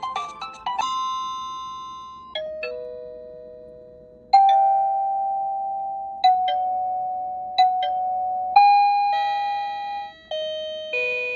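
AIDA wireless doorbell receiver playing its electronic chimes: a quick run of notes, then repeated two-note ding-dong chimes, the second note lower, each ringing and fading, coming every second or two.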